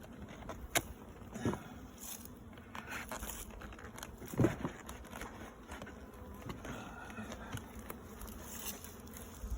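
Honeybees buzzing around an opened hive, with a few knocks and scrapes of wood being worked at; the loudest knock comes about four and a half seconds in.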